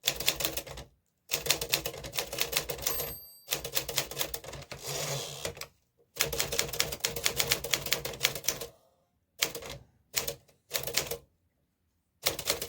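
Typebar typewriter being typed on in fast runs of key strikes, several a second, broken by short pauses. The runs thin out to a few short bursts of keystrokes in the last four seconds.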